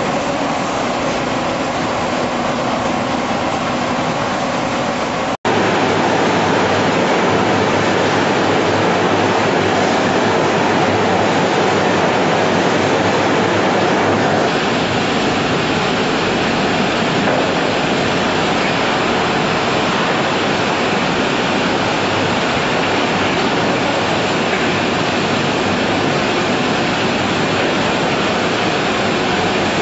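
Steady, loud machinery noise of a running poultry slaughtering line, a constant rushing din mixed with water-like hiss. It cuts out for an instant about five seconds in and changes character near the middle, turning hissier as a different stretch of the line is heard.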